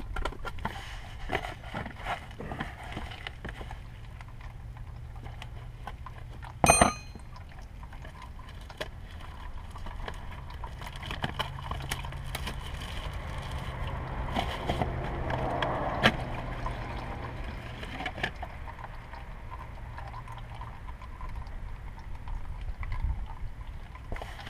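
Scattered handling clicks and rustling as a new oil filter is taken from its cardboard box. A single sharp ringing clink comes about seven seconds in.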